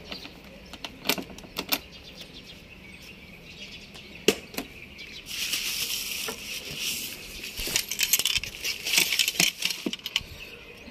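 Scattered clicks and knocks of handling around a scooter's under-seat storage, one sharp knock standing out near the middle. About five seconds in, the bubble wrap around a pair of number plates crinkles for several seconds as it is picked up and handled.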